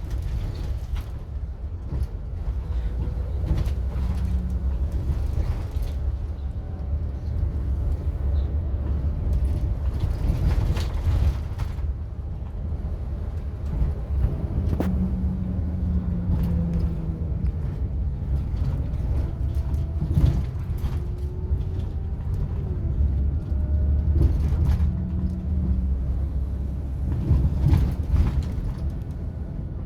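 Low, steady engine and road rumble inside a moving coach, with scattered short rattles and knocks from the cabin.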